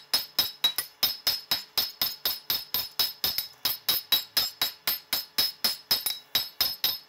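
A roughly 2.5-pound hammer striking a bright yellow-hot steel bar on an anvil in a quick, even rhythm of about four blows a second, each blow ringing: drawing out the reins of a pair of blacksmith's tongs.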